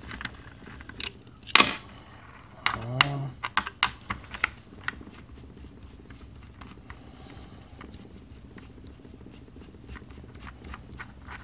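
A screwdriver turning out the screws of a motherboard's plastic CPU retention bracket: irregular small metal clicks and ticks, the loudest a little over a second and a half in and a quick run of them a few seconds in, then sparser and fainter.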